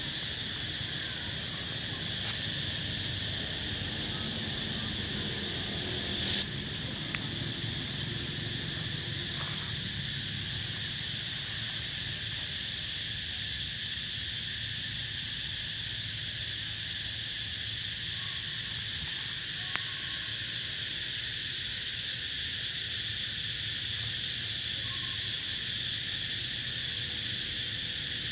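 Steady, high-pitched drone of an insect chorus, unchanging, with a few faint clicks.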